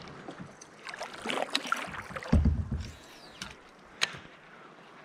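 Kayak on moving water: light water noise with scattered sharp clicks and splashes, and one dull knock against the hull about two and a half seconds in.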